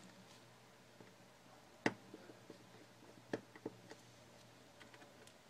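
Faint clicks and taps of small hand tools and parts on a partly disassembled iPhone 4: a few sharp, separate clicks, the loudest about two seconds in and two more about a second and a half later.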